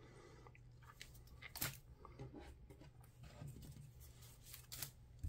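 Faint rustling and crackling of a thin cut-paper sheet being handled and flexed. There are a few sharper crinkles, about a second and a half in and near the end, over a steady low hum.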